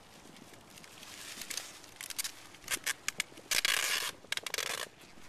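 Tape being pulled off the roll: quiet at first, then a run of short rips from about two seconds in and a longer rip of about half a second a little past the middle, as bubble wrap is taped on snugly.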